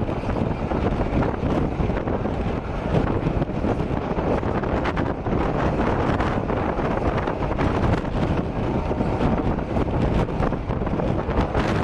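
Moving Indian Railways express train: a steady rumble of wheels on the track, with short rattles and clicks throughout, and wind on the microphone.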